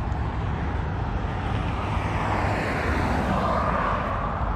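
Road traffic: vehicle engines and tyres making a steady low rumble, with a swell of passing-vehicle noise in the second half.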